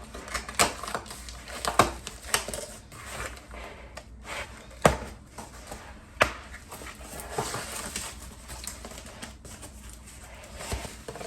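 Irregular clicks, knocks and rustling as a package of clear plastic stackable fridge containers is opened and the bins are handled. The sharpest knocks come about five and six seconds in.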